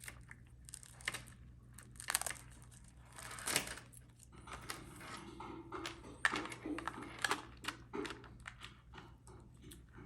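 Thin protective plastic film being peeled off a metal watch band and crinkled, in irregular short crackling rustles.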